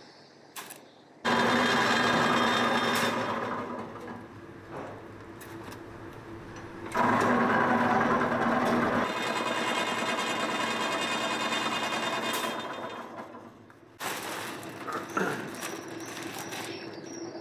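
Electric bakery machine motor switching on abruptly and running with a steady mechanical hum, easing off after a couple of seconds, then coming on strongly again and running about seven seconds before cutting off, followed by lighter clatter.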